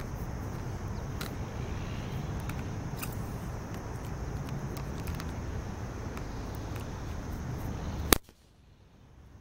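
Wind rumbling on the microphone with a few faint squeaks as a large inflated balloon is handled and tied off, then a single sharp bang about eight seconds in as the balloon pops, after which the sound drops suddenly to near silence.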